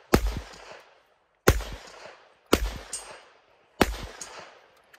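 Gunshots from other shooters on the firing line: four sharp reports a little over a second apart, each with a short echoing tail.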